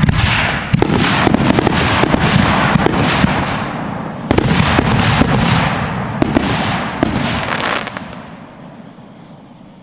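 Aerial fireworks bursting overhead: a dense crackle full of sharp pops, renewed by fresh bursts about a second, four and six seconds in, then dying away over the last two seconds.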